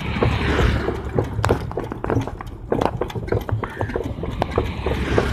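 Horse's hooves clip-clopping on a paved road as it pulls a wooden cart, with the cart knocking and its wheels rumbling.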